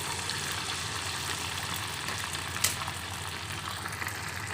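Corn-flour-coated pork chop deep-frying in hot oil: a steady hissing sizzle over a low steady hum, with one sharp click about two and a half seconds in.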